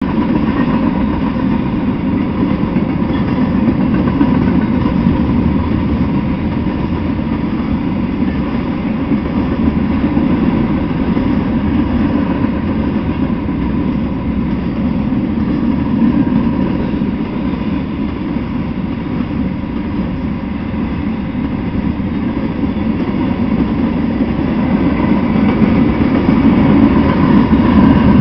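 Freight train cars rolling past on the rails: a steady rumble of steel wheels on track, growing a little louder near the end.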